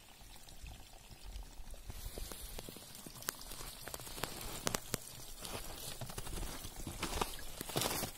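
Spring water running from a wooden chute into a plastic bottle, a steady splashing trickle that starts about two seconds in, with scattered sharp clicks over it.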